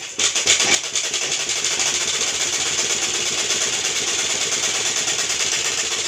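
Merritt sewing machine stitching at speed, a steady fast rattle of the needle mechanism as the fabric is fed through. It comes up to speed right at the start and runs evenly without a break.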